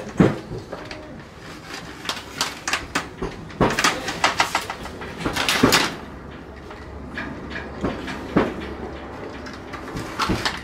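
Irregular knocks and light clattering, coming in short clusters of several a second at times, over a faint steady background.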